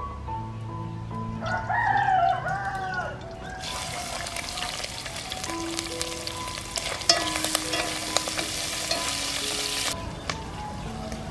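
A rooster crows once about a second and a half in. From about four seconds in, food sizzles loudly as it fries in hot oil in a metal pot, with the clicks of chopsticks stirring, and the sizzle cuts off suddenly near the end. Soft background music with piano notes runs underneath.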